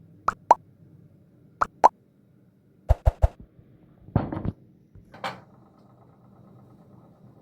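Kitchen handling sounds: short sharp clicks with a slight ring, coming in two pairs, then three quick knocks, a duller knock and one last click.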